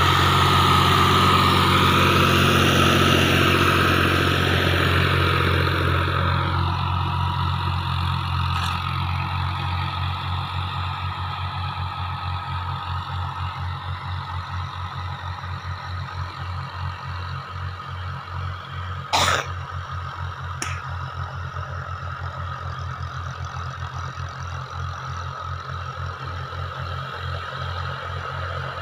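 Fiat tractor's diesel engine running steadily while pulling a cultivator through the field, loudest as it passes close and slowly fading as it drives away. There is a sharp click about nineteen seconds in and a fainter one shortly after.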